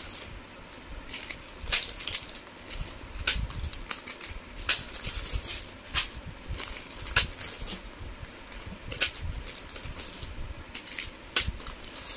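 Clear plastic jewellery packets rustling and crinkling as a hand sorts through them in a cardboard box, in irregular sharp crackles with a low handling rumble underneath.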